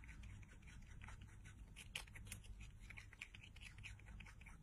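Small rodent crunching on a piece of raw carrot held in its paws: a faint, quick, irregular series of crisp bites, with one sharper crunch about two seconds in.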